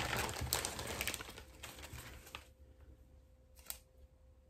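Rustling and crinkling as a cross-stitch fabric piece with skeins of floss attached is handled and held up. It dies away after about two and a half seconds, leaving a single light click.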